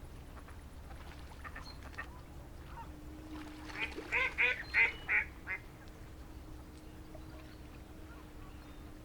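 Duck quacking: a quick run of about five quacks midway through.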